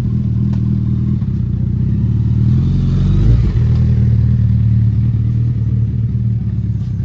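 Suzuki Hayabusa inline-four with an aftermarket slip-on exhaust, running at idle, with a short surge in revs about three seconds in as the bike moves off slowly.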